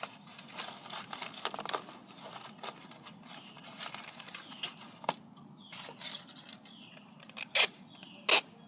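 Hands handling a cardboard cereal box covered in aluminium foil and tape: scattered rustling and scraping, with a few sharp clicks near the end.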